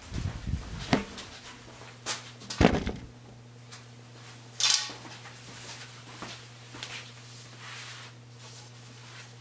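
Camera handling noise: the camera is carried and set down, with heavy thumps and knocks in the first three seconds and a short hiss about five seconds in. A steady low hum runs underneath from about a second in.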